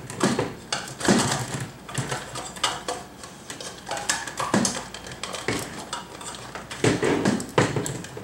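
Swing-arm lamp head and arm being handled and turned at the joint, with irregular hard clicks, knocks and clattering of the lamp parts; the loudest knocks come about a second in and again near the end.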